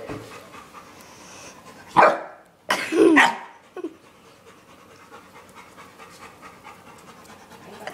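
Dog panting, with two loud short sounds about two and three seconds in.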